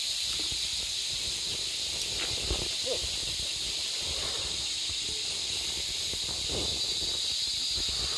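Steady high-pitched drone of tropical forest insects, with a few faint knocks and shuffles as heavy sawn red meranti beams are shifted by hand.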